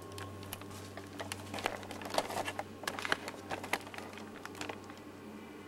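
Handling noise: irregular crackling clicks and rustling as the camcorder is moved about, over a steady low hum.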